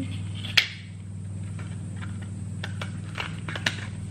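Sharp clicks and taps from a clear plastic phone case being handled: one loud click about half a second in, then a run of lighter clicks near the end, over a steady low hum.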